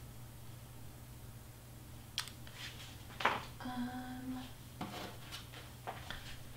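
Light clicks and knocks of small objects being handled, the loudest about halfway through, followed by a short pitched tone, over a steady low room hum.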